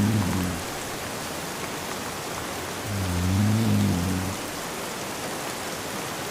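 Steady rain with a man snoring over it. One low snore tails off just after the start, and another snore of over a second comes about three seconds in.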